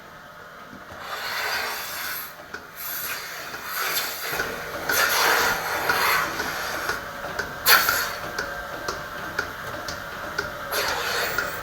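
Irregular rubbing and brief hissing noises from hands working at a dairy cow's udder during pre-milking preparation: the teats are being wiped clean and stripped to check the milk flows.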